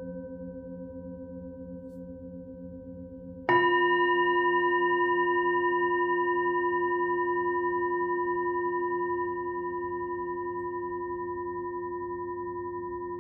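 Singing bowls ringing: a tone with a slow wavering pulse carries on from an earlier strike, then about three and a half seconds in a bowl is struck, adding a louder, brighter ring with different overtones that slowly fades.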